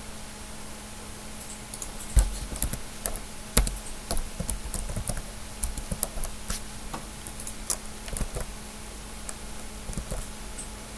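Typing on a computer keyboard: irregular key clicks starting about two seconds in, over a faint steady hum.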